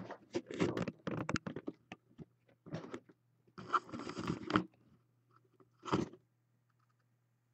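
Handling noise: irregular scraping and crunching as something is moved about close to the microphone, with a flurry of clicks in the first two seconds and further bursts about three, four and six seconds in, over a faint steady low hum.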